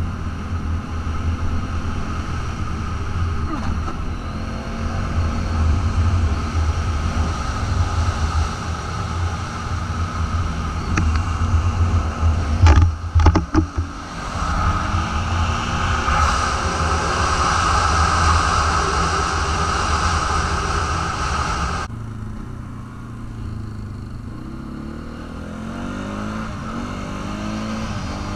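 Polaris Sportsman 550 ATV's single-cylinder engine running under way. A quick cluster of knocks comes about halfway through, then the engine runs louder and revs up. It drops off suddenly a few seconds later and climbs in pitch again near the end.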